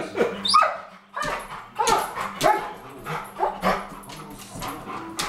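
Airedale terrier whining and yipping: a quick rising whine about half a second in, then a string of short, high barks, each dropping in pitch.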